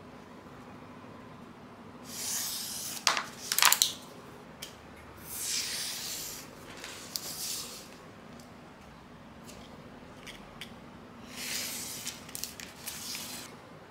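A snap-off utility knife drawn along a wooden ruler, slicing through self-adhesive vinyl sheet in three hissing strokes, with a few sharp clicks during the first.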